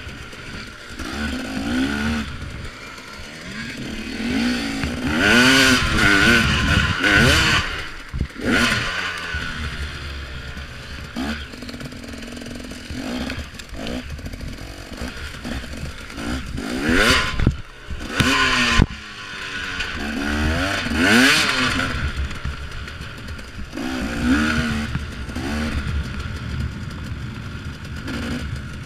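2014 KTM XC-W 250 two-stroke dirt bike engine revving up and down repeatedly while riding, with several hard pulls. A few sharp knocks from the bike over rough ground.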